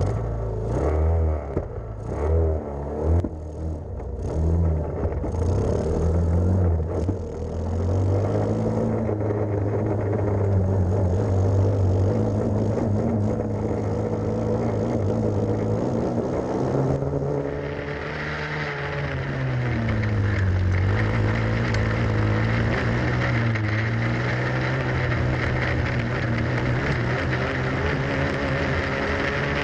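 Grass kart engine heard from onboard, revving in short uneven bursts for the first several seconds, then running steadily at racing speed. About two-thirds of the way through, the engine note drops and climbs again as the kart slows and picks up speed.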